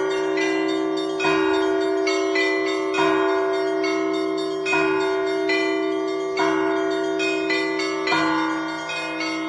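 Russian Orthodox church bells rung together in a zvon. A low bell is struck about every second and a half to two seconds over a steady ringing hum, and smaller bells ring quicker patterns in between.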